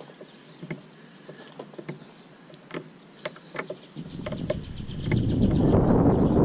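Small irregular metallic clicks of a wrench turning nuts on an outrigger mounting bracket. From about four seconds in, a loud low rushing of wind buffeting the microphone swells up and covers them.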